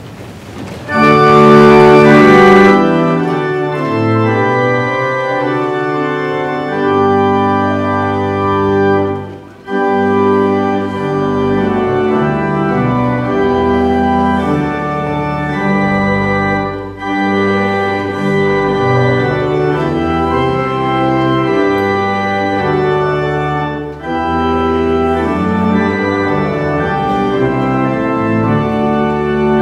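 Church organ playing a hymn in slow held chords, with brief breaks between phrases.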